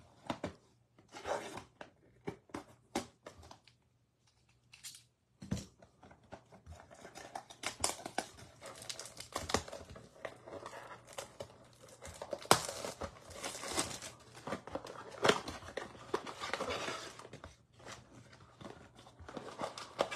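Trading card pack wrappers being torn open and crinkled by hand: a few short handling clicks at first, then from about six seconds in a long run of tearing and crinkling.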